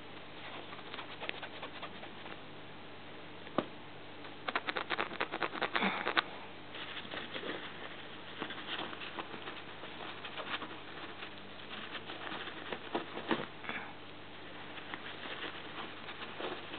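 Irregular light scratching, rustling and clicking of a fabric pop-up cat tent and its mat as a cat shifts about inside, with a dense run of clicks about four to six seconds in.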